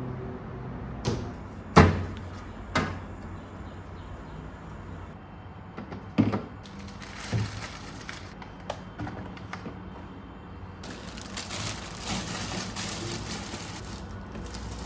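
A handful of sharp knocks and clunks, the loudest about two seconds in, with hiss rising in the second half.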